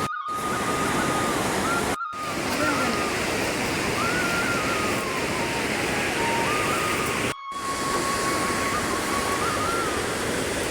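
Steady rushing noise with a thin, high, flute-like line stepping up and down in pitch over it. The sound cuts out completely for a moment three times.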